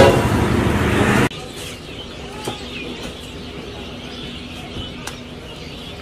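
Loud, dense street noise that cuts off abruptly about a second in. Then quieter road-traffic background with a faint steady hum and a few short faint chirps.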